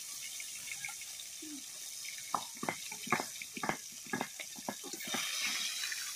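Fish frying in hot oil in a kadhai, a steady sizzle. From about two to five seconds in comes a quick run of sharp metal clinks from steel utensils, a spatula knocking against the bowl and pan.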